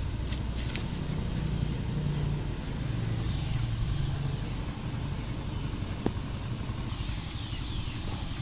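Wood fire burning under a large pot of water at a rolling boil, a steady low rumble with a few sharp crackles near the start and a single crackle about six seconds in.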